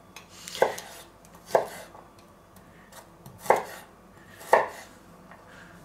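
Kitchen knife chopping garlic on a wooden cutting board: four clear knife strikes on the board, in two pairs about a second apart, with a few fainter taps between.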